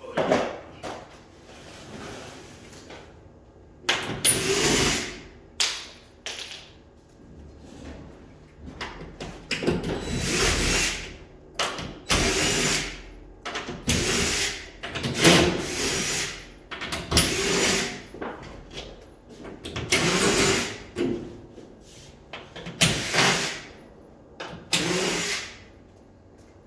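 Power drill run in short bursts of about a second each, roughly ten times, with brief pauses between.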